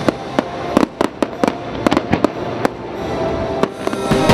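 Aerial fireworks shells bursting in a rapid, uneven string of sharp bangs, about a dozen in four seconds, with the show's music playing underneath.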